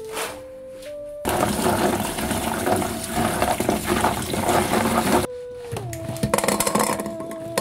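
Tap water running onto raw chestnuts in a bamboo basket as they are washed, starting about a second in and cutting off abruptly near the end, over soft sustained background music.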